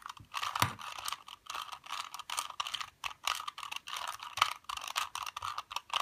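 Plastic 2x2x2 Rubik's cube being turned quickly through a move sequence: a rapid, uneven run of clicks and scrapes as its layers snap round.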